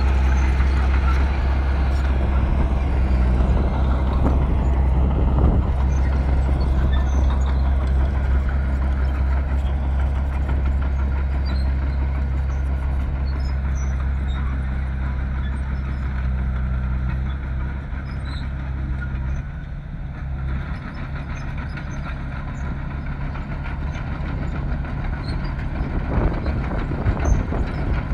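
Bulldozer's diesel engine running steadily with a deep drone; the drone eases about twenty seconds in and the sound grows a little louder again near the end.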